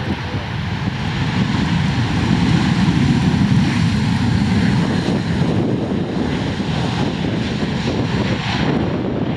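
A Boeing 737-900's twin CFM56-7B turbofan engines heard as the airliner rolls out on the runway just after touchdown, a loud dense rumble that swells to a peak a few seconds in and eases slightly as the plane passes and moves away.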